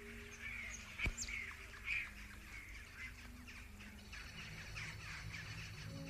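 Small birds chirping and calling with many short, high chirps, and a sharp click about a second in. Steady music notes come in about four seconds in.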